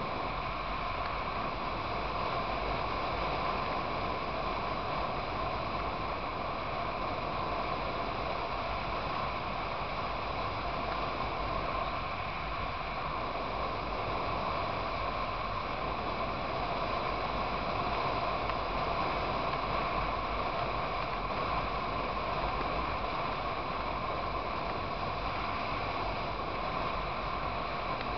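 Motorcycle riding at a steady cruising speed: engine running evenly under a constant rush of wind and road noise.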